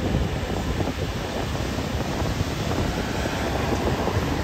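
Wind buffeting the microphone over surf breaking on the shore, with a paramotor's propeller engine running in the air overhead.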